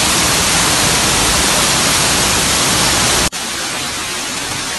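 Steady, even rush of a tall waterfall's falling water. About three seconds in, it drops a little quieter and loses some of its low rumble.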